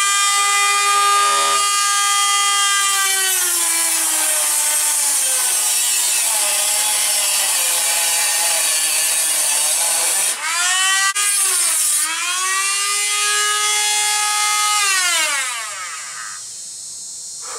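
A high-speed power tool cuts the snorkel hole through the steel front fender: a steady high whine with a hiss of cutting, sagging in pitch as it bites. It stops briefly about ten seconds in, spins back up, and winds down near the end.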